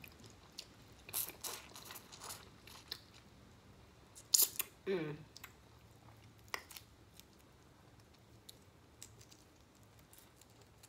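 Close-miked eating sounds: chewing steamed shrimp and the crackle of shrimp shells being peeled apart by hand, as scattered sharp clicks. The loudest is a cluster of sharp sounds about four and a half seconds in, followed by a short hum falling in pitch; after about seven seconds only a few faint clicks remain.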